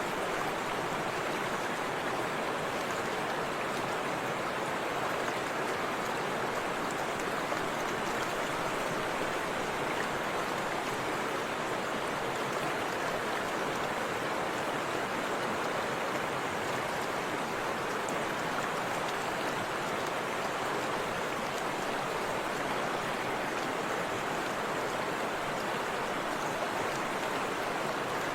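Forest river flowing: a steady, unbroken rush of water.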